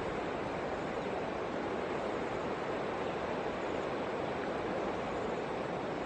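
Steady, even rushing outdoor ambience by a river, with no distinct splashes or knocks standing out.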